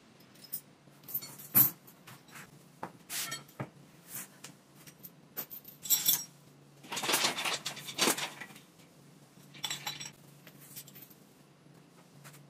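Steel chain clinking and rattling against a differential housing and a steel bench as it is wrapped around the differential and hitched for lifting: scattered sharp metal clanks, the loudest about a second and a half in, and a longer run of jangling a little past the middle.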